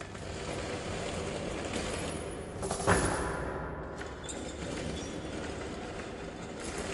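Continuous rumbling, scraping noise with one loud bang about three seconds in, its ringing fading over the next second.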